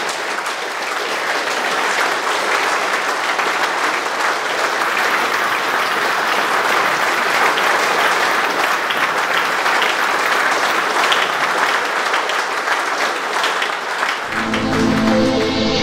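Large audience applauding steadily at the close of a lecture; near the end the clapping gives way to music with steady sustained tones.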